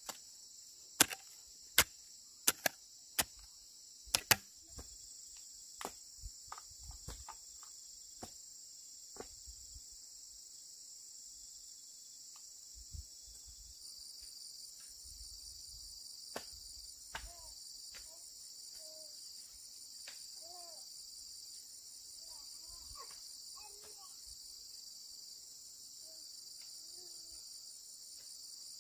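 A steady, high-pitched insect chorus, joined about halfway through by a pulsing chirp. In the first few seconds there is a run of loud, sharp knocks less than a second apart, then fainter knocks for a few more seconds.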